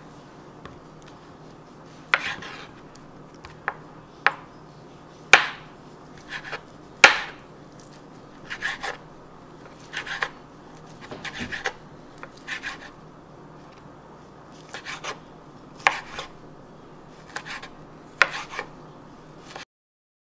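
Chef's knife slicing boiled pork belly and knocking down onto a bamboo cutting board: irregular sharp taps, some single and some in quick runs of three or four.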